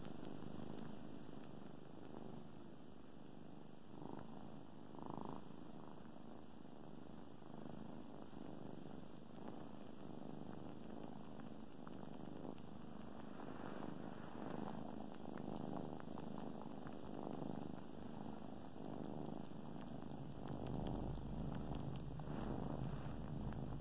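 Kittens purring steadily, with soft wet clicks of a kitten suckling on a fleece blanket; the purring grows louder near the end.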